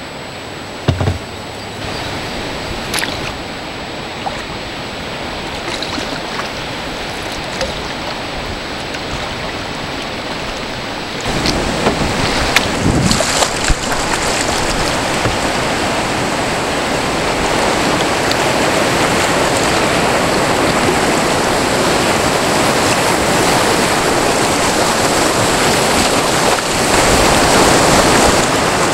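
Rushing white water tumbling over a river weir and rapids, a steady roar of noise that grows louder in steps as the kayak closes in, with a few short knocks.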